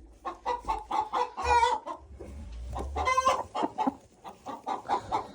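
Domestic hens clucking repeatedly in short calls, with louder drawn-out calls about a second and a half in and again about three seconds in.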